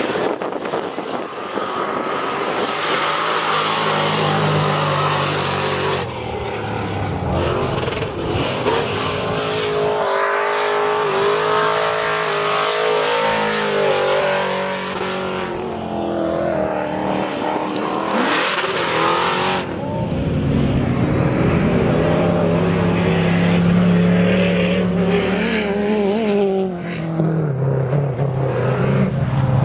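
Off-road race trucks lapping a dirt track, their engines revving hard with the pitch rising and falling over and over as they accelerate, shift and back off through the turns. The engine note is loudest about halfway through and again in the last third as trucks pass close by.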